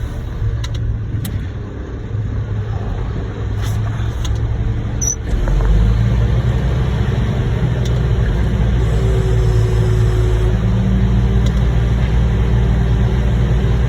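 Heavy diesel engine running steadily with a low rumble; about five seconds in it revs up and holds at the higher speed.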